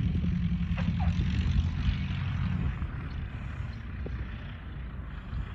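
A 1945 Luscombe 8A's small four-cylinder engine and propeller running as the airplane lands and rolls out along the runway. The sound fades about halfway through as the plane moves away.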